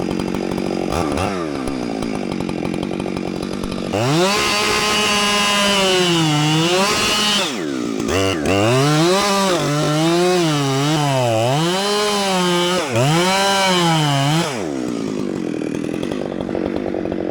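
Big two-stroke chainsaw cutting into a stump: it idles with a quick blip, then runs at full throttle for about ten seconds, its pitch sagging and recovering repeatedly as the chain bogs in the wood, before dropping back to idle. The chain is dull.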